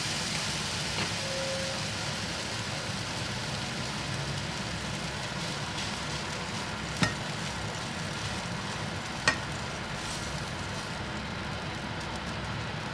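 Butter sizzling steadily under a slice of bread frying in a nonstick pan, slowly fading. Two sharp clicks sound about seven and nine seconds in.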